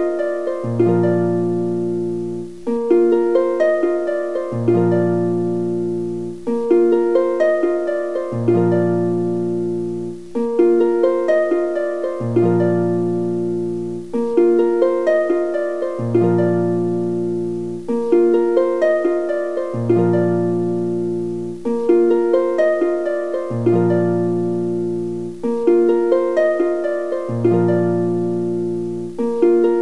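Background music: a looping plucked-string tune with a bass line, the same short phrase repeating about every two seconds.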